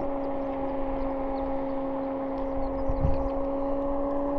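A car engine idling steadily at one constant pitch, with a dull thump about three seconds in.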